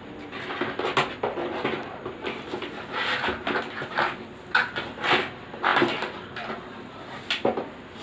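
Cardboard box and plastic bubble-wrap packaging rustling and crinkling as a computer keyboard and mouse are handled and lifted out, with several sharp knocks of the plastic keyboard against the box.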